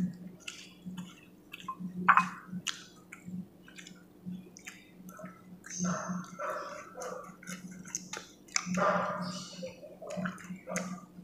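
Close-up eating sounds: wet chewing and lip smacks as grilled fish and arugula are eaten by hand, with scattered sharp clicks as fingers pick at the fish on foil, the loudest click about two seconds in.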